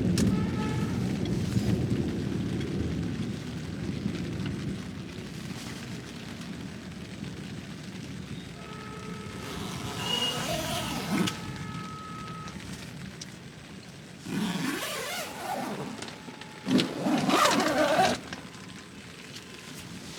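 Rolling thunder that fades away over the first few seconds. Later come a thin steady tone lasting a few seconds and three loud, noisy bursts, the loudest near the end.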